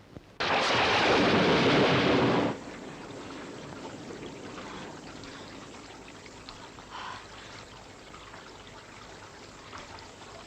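Heavy rain in a film soundtrack: a loud burst of rain noise for about two seconds that cuts off abruptly, leaving a faint steady rain hiss.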